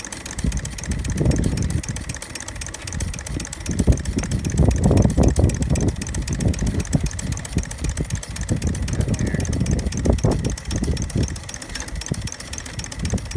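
Live-steam model steam locomotive standing with steam pouring from its smokestack: a steady hiss over an uneven low rumble that swells about four seconds in.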